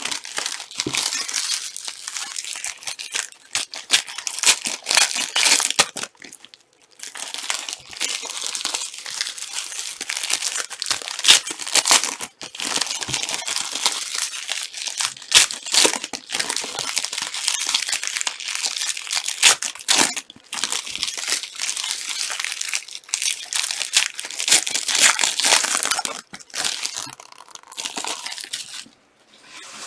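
Trading card pack wrappers being torn open and crinkled, in long runs of crackling broken by short pauses.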